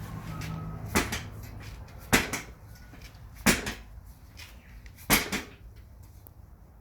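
Four sharp knocks, about one to one and a half seconds apart, each with a brief ring.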